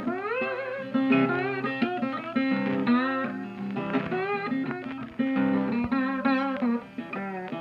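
Intro music: guitar with plucked and strummed notes and bending, sliding notes.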